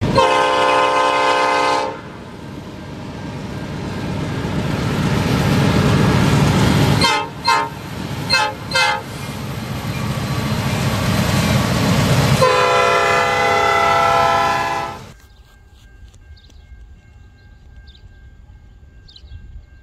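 Diesel freight locomotive sounding its air horn at a grade crossing: a long blast, a few short blasts about seven to nine seconds in, then another long blast, over a rising rumble of the engine and the train. About fifteen seconds in the sound cuts to a quiet scene with faint bird chirps.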